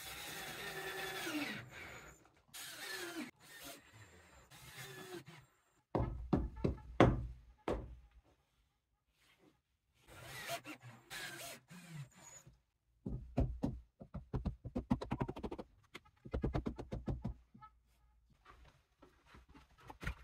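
Hand work setting a board into clay adhesive mortar: irregular knocks and thuds, with runs of rapid scraping strokes in the second half.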